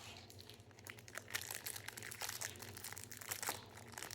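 Plastic wrapper of a Topps baseball card pack crinkling as it is handled and torn open, a dense crackle that starts about a second in.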